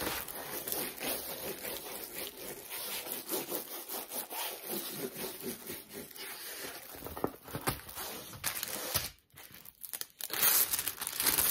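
Paper wrapping and a rolled diamond painting canvas rustling and crinkling as they are unrolled and handled, with a brief lull about nine seconds in, then louder crinkling.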